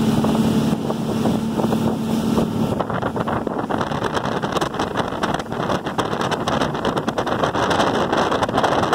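Motorboat running at towing speed, with its wake rushing and wind buffeting the microphone. A steady engine hum is clear for the first few seconds, then the wind and water noise take over.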